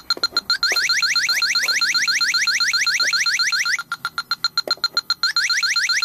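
Electronic refrigerant leak detector clicking steadily, then twice breaking into a fast run of rising chirps, about a second in and again near the end. The chirps mean it is sensing leaking R22 refrigerant at the pressure switch: it goes off the scale.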